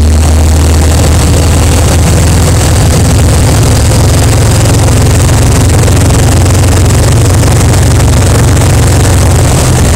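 Kawasaki Vulcan 1500's V-twin engine running steadily under way, a loud low drone, with a steady rush of wind noise over it.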